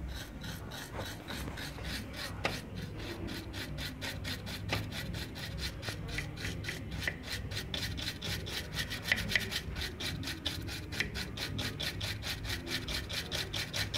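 Small brush scrubbing a car stereo's circuit board with isopropyl alcohol in quick back-and-forth strokes, about four or five a second, cleaning off solder residue left from desoldering.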